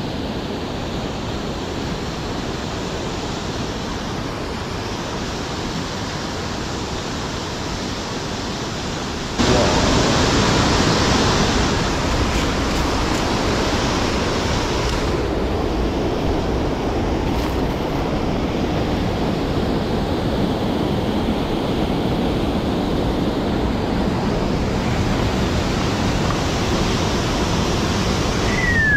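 Steady rushing wind on the microphone, which gets suddenly louder about nine seconds in and stays that way.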